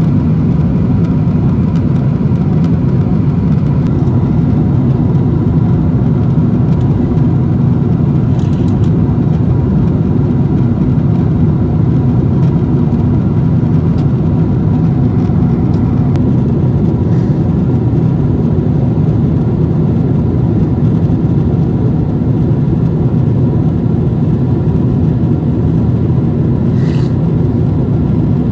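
Steady low rumble of engine and airflow noise inside the cabin of a Boeing 777-300ER, unchanging throughout.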